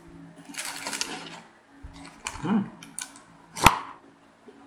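Small plastic sauce packet rustling and crinkling as it is handled, with one sharp click about three and a half seconds in.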